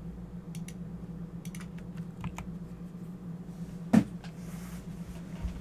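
Keys of a Corsair computer keyboard being pressed in scattered, separate clicks, several in the first two and a half seconds, then a single much louder thump about four seconds in. A steady low hum runs underneath.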